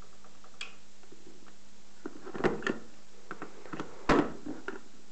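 Scattered light knocks and clicks over a steady low hum, with the loudest knocks about two and a half and four seconds in.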